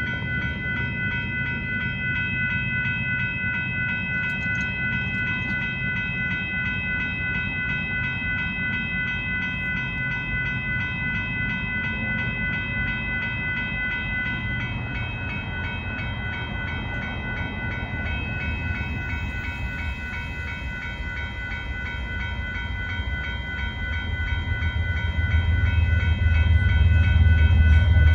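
Railroad grade-crossing warning bell ringing steadily and rapidly as the crossing signals activate. About three-quarters of the way through, a low rumble from the approaching Union Pacific intermodal freight train swells in and grows loud toward the end.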